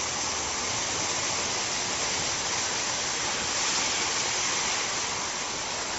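Steady rushing of water from a storm downpour and flooded street, an even hiss with no let-up.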